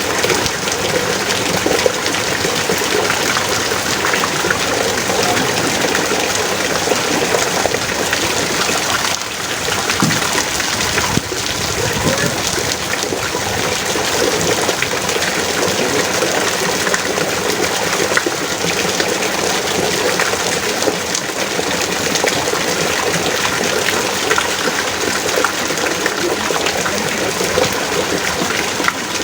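Heavy rain pouring down steadily: a dense, even hiss of water with scattered sharper drop hits.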